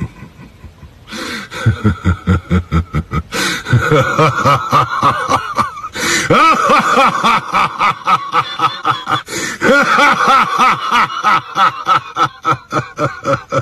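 A person laughing at length, in rapid rhythmic bursts of about four a second with rising and falling pitch. It starts about a second in and grows louder about three and a half seconds in.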